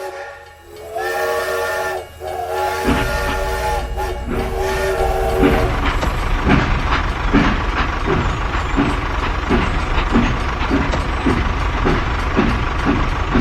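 A multi-note horn sounding in two long blasts, then a low running rumble with a regular beat about one and a half times a second.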